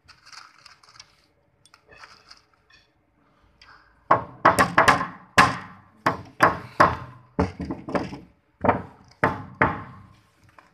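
Rubber mallet tapping on the parts of a clear plastic chiavari chair frame to seat its joints during assembly. A few light handling clicks come first, then a quick run of about a dozen sharp knocks starting about four seconds in.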